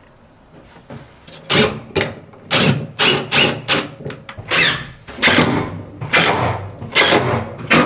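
DeWalt cordless drill run in about a dozen short trigger bursts, boring into stacked plywood.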